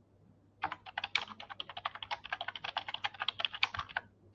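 Typing on a computer keyboard: a fast, even run of keystrokes that starts about half a second in and stops just before the end.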